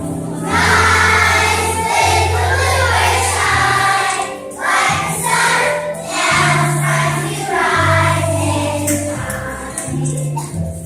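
A song with several voices singing together over accompanying music with a steady bass line. The sung phrases start about half a second in and die away shortly before the end.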